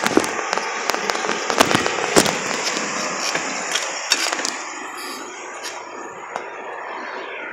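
Bicycle riding over city pavement: wind and road noise with many sharp clicks and knocks as the bike and its handlebar-mounted camera rattle over bumps. The knocks thin out after about four and a half seconds, leaving a steadier rolling noise.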